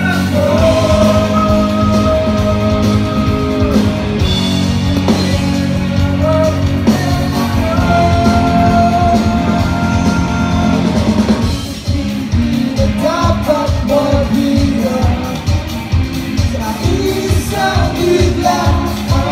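A rock band playing live through a big stage sound system, with singing. Long held vocal notes at first; after a brief dip about twelve seconds in, a steady beat with short sung phrases.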